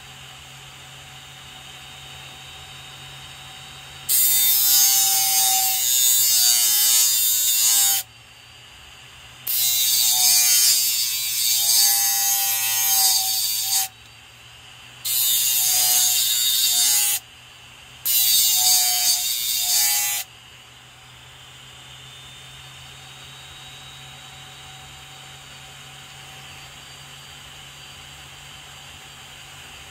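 Hard disk's BLDC spindle motor running with a steady hum while a utility knife blade is pressed four times against the spinning sandpaper-covered platter, each contact a loud scraping grind lasting a few seconds.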